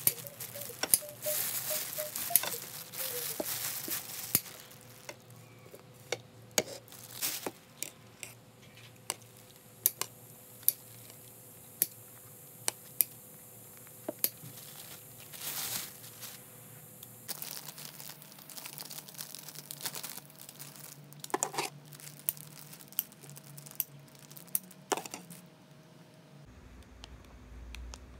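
Plastic bakery bag crinkling and rustling as bread is handled, with a series of sharp snips from kitchen scissors cutting through the bread.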